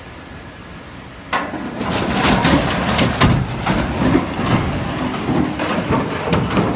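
A steel truss bridge collapsing under a truck loaded with an excavator: a sudden crash about a second in, then a long run of heavy crashing and clattering impacts as the truck, its load and the bridge fall into the gorge.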